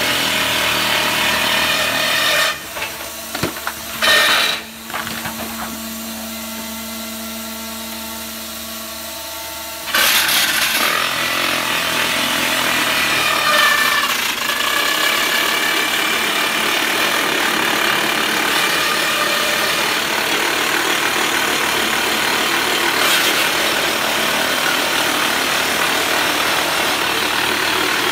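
DT1-14 drilling rig's hydraulic rock drill hammering into a rock face. About two and a half seconds in it stops, leaving the rig's steady motor hum with one brief loud knock, and about ten seconds in the drilling starts again.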